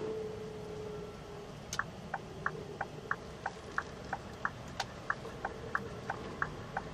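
Turn-signal indicator ticking in a lorry cab, about three clicks a second, starting nearly two seconds in, over the low steady running of the Scania R580's engine as it turns at a junction.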